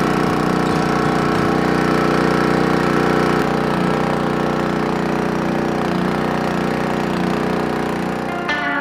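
Farm machine's engine idling steadily, with an even, unchanging drone.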